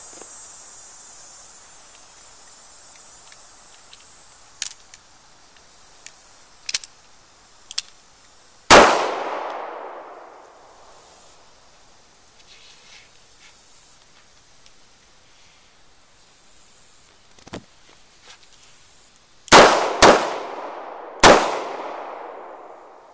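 Snub-nosed .38 Special revolver (Smith & Wesson 360) firing: one shot about nine seconds in, then near the end two shots half a second apart and a third about a second later, the two-then-one rhythm of a failure drill. Each shot rings out and fades. A few faint sharp clicks come between the shots.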